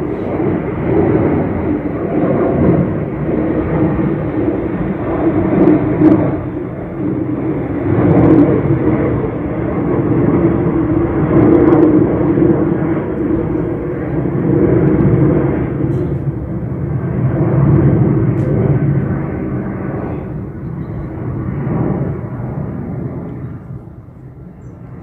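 Boeing 737-800's CFM56 jet engines at takeoff power as the airliner climbs out overhead: a loud, steady jet roar that swells and eases over several seconds and dies away near the end.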